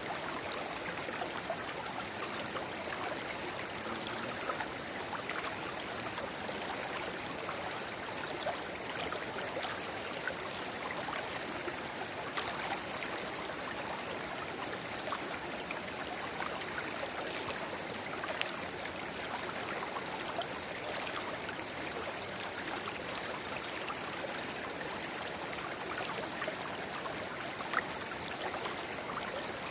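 Shallow river water babbling over stones, with a narrow spring-fed rivulet spilling into it: a steady rush dotted with many small splashes and droplet ticks.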